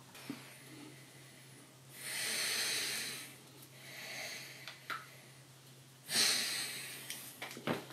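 A man breathing heavily: two long, noisy breaths about four seconds apart, with a softer one between them and a few small clicks near the end.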